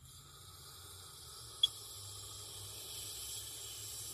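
Aerosol can of Solo C6 carbon monoxide test gas being sprayed: one steady hiss of about four seconds that cuts off suddenly, with a brief click about one and a half seconds in.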